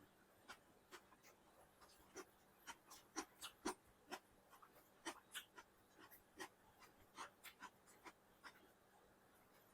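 Close, quiet eating sounds of someone eating chicken biryani: irregular soft clicks, smacks and chewing noises, a few each second.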